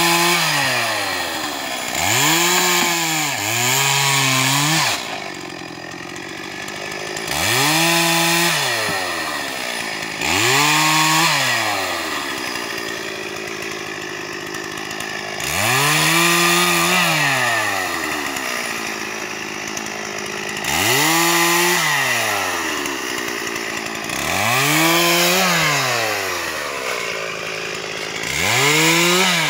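Stihl MS440 two-stroke chainsaw limbing a felled tree. It is revved up to full throttle for each short cut and drops back to idle between cuts, about nine times, with two quick cuts close together a few seconds in.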